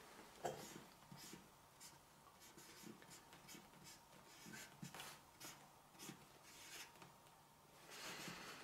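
Faint strokes of a Sharpie marker writing on a cardboard Ouija board, a series of short strokes one after another as letters are drawn.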